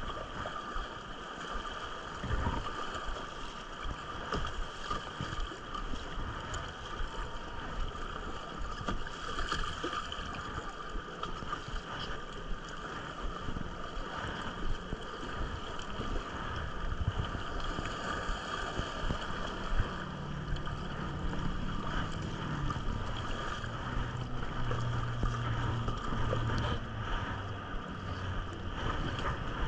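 River water rushing and lapping around a float on the river, with wind buffeting the action camera's microphone. A low steady hum joins about two-thirds of the way through.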